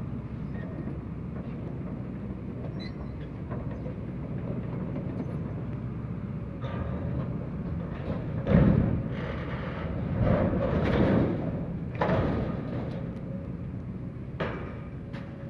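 Excavator's diesel engine running steadily under load while it demolishes a temporary building. Several crashes and thuds of breaking material come over it, the loudest about eight seconds in and more near the end.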